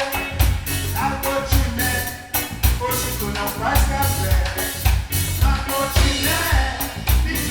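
Live band playing a song, with a voice singing over a steady drum beat.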